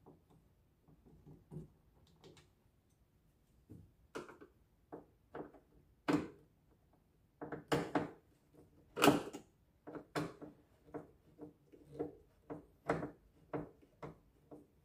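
Screwdriver knocking and scraping against the plastic top panel of a Panasonic top-loading washing machine as the panel is worked loose. It is quiet for the first few seconds, then comes an irregular run of short clicks and knocks, the loudest a little past the middle.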